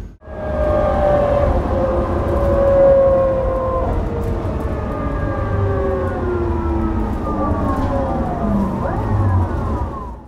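Bus running, heard from inside: a low engine and road rumble under several whining tones that slide slowly down in pitch, the sound of the Scania L94UB's driveline and ZF Ecomat automatic gearbox winding down as the bus slows. Near the end a new whine rises briefly and falls again, then the sound fades out.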